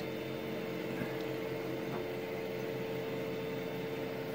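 Steady hum of running bench test equipment, cooling fan and mains hum, with one strong steady tone. A couple of faint clicks come about a second and two seconds in as the power supply's rotary voltage knob is turned.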